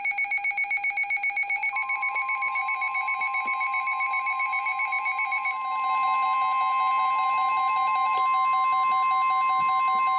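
Several weather alert radios sounding their alarms in rapid pulsing beeps, which give way about five and a half seconds in to steadier tones. About two seconds in the NOAA Weather Radio 1050 Hz warning alarm tone starts and holds steady: the signal that a warning is about to be broadcast.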